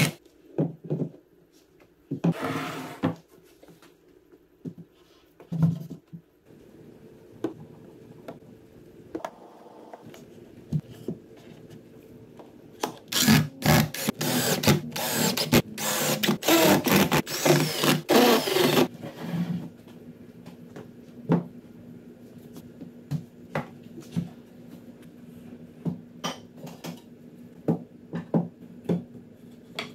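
Cordless drill driving screws into pine framing in short bursts, with a longer run of bursts about halfway through, between clicks and knocks of wood and bar clamps being handled. A faint steady hum lies under the second half.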